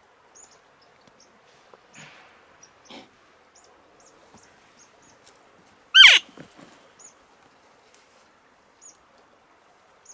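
A cow-elk mew from a Primos Hoochie Mama squeeze-type elk call, about six seconds in: one loud, short call sliding steeply down in pitch. It sounds over the soft rush of the river and scattered faint high chirps.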